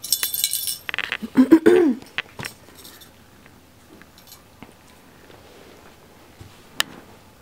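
Small jingle bell on a feather cat toy jingling as a kitten bats and mouths it, loudest in the first second or so, then only a few faint rattles. A brief voice sounds about a second and a half in, and a single sharp click comes near the end.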